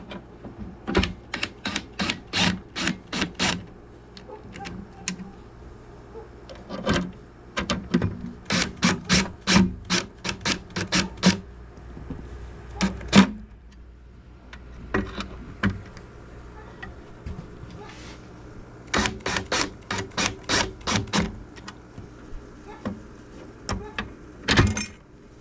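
Screws being tightened by hand into a gumball machine's metal parts: runs of sharp clicks, about three to four a second, in several bursts with pauses between.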